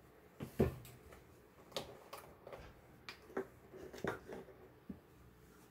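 A string of light clicks and knocks, the loudest about half a second in, from handling a carton of soy milk: its plastic screw cap is twisted off and set on the counter, and a plastic measuring cup is picked up.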